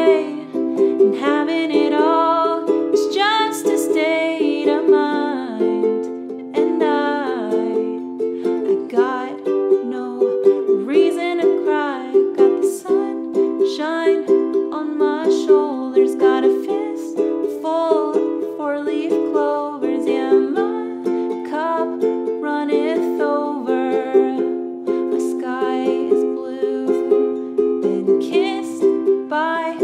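A woman singing over a strummed Kala ukulele.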